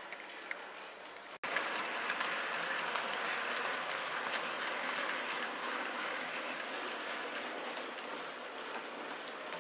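OO gauge model Class 20 diesel and goods wagons running along model track: a steady rattling hum with many small clicks from the wheels on the rails. It cuts out briefly about a second and a half in and comes back louder as the train passes close by.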